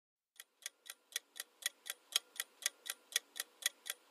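Countdown-timer sound effect: a clock ticking, sharp even ticks at about four a second, starting about half a second in.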